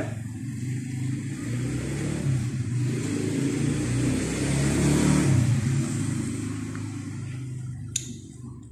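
A vehicle engine running, growing louder until about five seconds in and then fading away, with one sharp click near the end.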